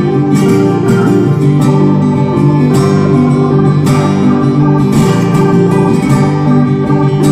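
Background music: an acoustic guitar tune with a strong strum about once a second.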